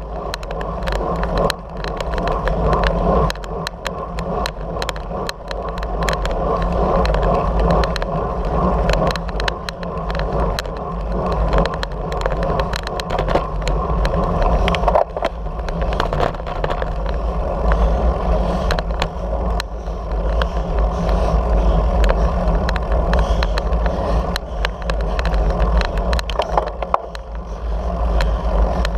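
Wind rumbling over the action camera's microphone as a road bicycle rides at speed, with steady tyre-on-asphalt noise and many small clicks and rattles throughout.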